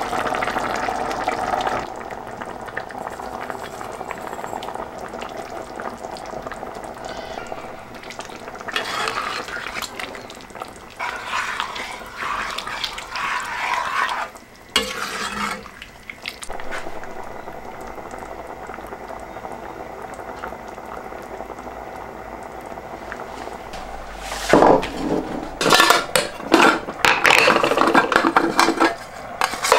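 Red wine pouring into a pot of bolognese meat sauce, then the sauce simmering and being stirred, with irregular scraping bursts. Near the end, louder sharp rustling and clinks as dried herbs are handled in an enamelled metal container.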